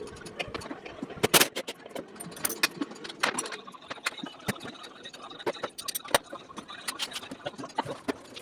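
Metal tools and scooter parts clinking and knocking in quick, irregular strikes, with one louder knock about a second and a half in.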